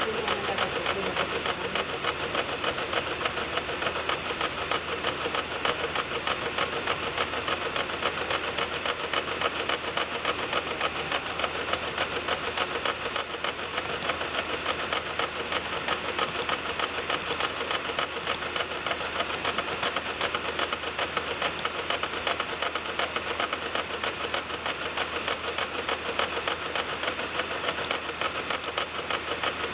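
Computer DVD drive reading a burned disc: an even, rapid clicking of about three clicks a second over the steady whir of the spinning disc. The drive's optical head is seeking over and over as it reads program files off the DVD.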